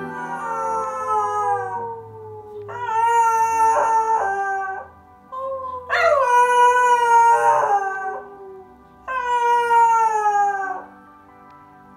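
Scottish terrier puppy howling: four long howls, each sliding slowly down in pitch, with a short yelp-like howl between the second and third.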